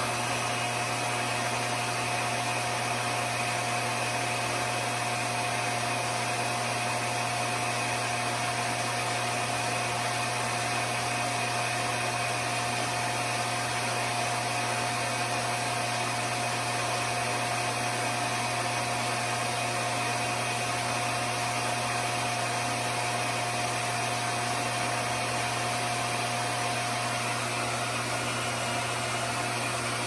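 RevAir reverse-air hair dryer running at suction tension setting 5, its wand drawing hair in while it dries. It makes a steady rush of air with a low hum and a thin, constant whine that do not change.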